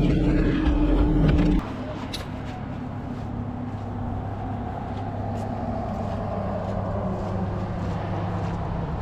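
Engine running steadily. About a second and a half in it cuts abruptly to a quieter, steady engine hum.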